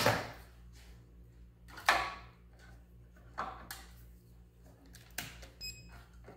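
Hands handling the wiring in an RC boat's radio box, plugging plastic servo-lead connectors into the receiver: a handful of sharp clicks and knocks with wire rustling, and a short high electronic beep near the end.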